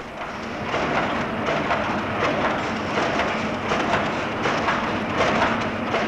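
Steady, dense clattering and hissing of a paper milk-carton forming and filling machine at work.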